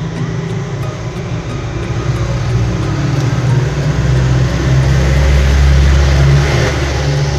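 Low engine rumble of road traffic, swelling from about four seconds in and easing near the end, as a vehicle passes.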